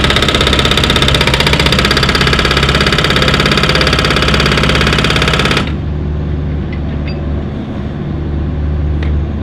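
Hydraulic breaker hammer on a Volvo EC45 mini excavator pounding concrete in a rapid, even stream of blows over the running diesel engine. The hammering stops abruptly a little past halfway, leaving the engine running steadily.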